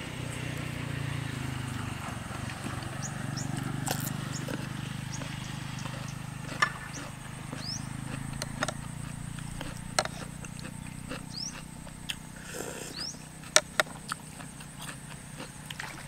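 Close-miked eating: chewing and mouth smacks, with sharp clicks of a spoon and chopsticks against the bowl. Short high chirps of small birds sound several times in the background.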